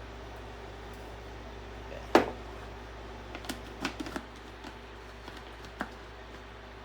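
A sharp knock, then a scatter of lighter clicks and taps as a measuring cup and containers are handled while sugar is measured out, over a steady low hum.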